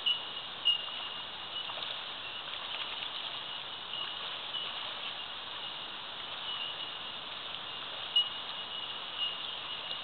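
Steady hiss of a flowing creek, with short high notes at irregular intervals and a couple of brief sharp sounds, one just after the start and one about eight seconds in.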